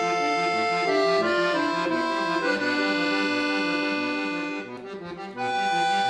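Solo accordion playing a held melody over a pulsing bass-and-chord accompaniment, about two beats a second. The sound thins briefly about five seconds in, then resumes at full strength.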